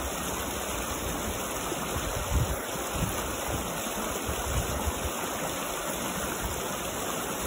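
Shallow rocky creek rushing over stones, a steady, even rush of running water.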